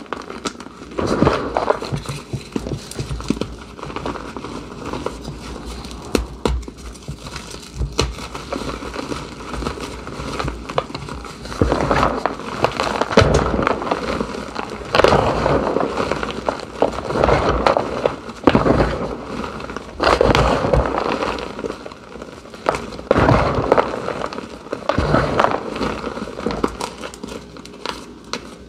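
Hands crushing blocks of reformed gym chalk into a tub of loose chalk powder. It is a continuous run of irregular crunching and crumbling, with louder bursts every few seconds as chunks are broken and raked through.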